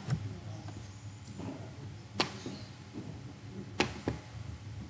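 A few scattered sharp clicks at a computer, about four in all, spaced one to two seconds apart, over a low steady hum.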